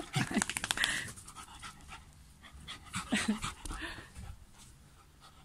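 A small dog panting quickly, loudest in the first second and then fainter.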